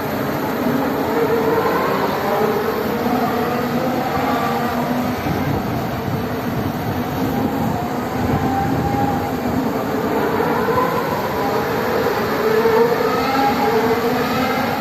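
Formula One cars' engines at race speed, heard at some distance: a continuous drone of several overlapping engine notes, each rising and falling with the cars' acceleration and gear changes.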